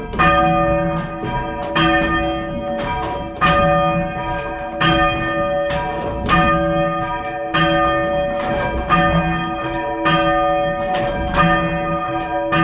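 A ring of three church bells cast by Thomas Mears II of London in 1824, rung full circle in change ringing. The bells strike one after another in a steady, unbroken rhythm, each stroke ringing on into the next.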